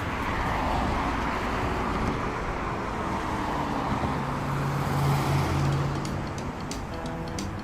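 A motor vehicle running: a steady rush of engine and road noise, with a low engine hum that swells to its loudest a little past the middle.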